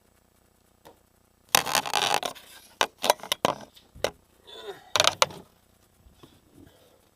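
Scraping and handling noise, with a second of loud rough scraping, a few sharp knocks, then another short scrape.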